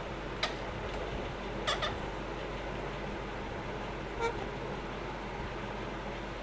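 A few short, sharp calls from pet birds, four in all with two close together, over a steady background hiss.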